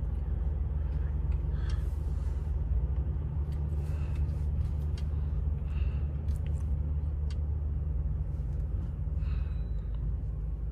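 Steady low rumble inside the cabin of a Mercedes-Benz S580 rolling slowly in traffic: its engine and road noise, heavily muffled.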